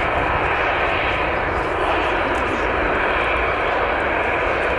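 Steady jet airliner noise: an even rushing hiss that holds the same level throughout.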